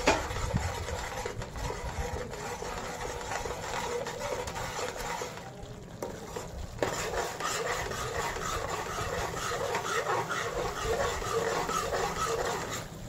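A metal spoon stirs and scrapes thick tomato-onion masala paste around a steel kadai as the paste cooks in oil. There is a brief pause about halfway and a single click soon after.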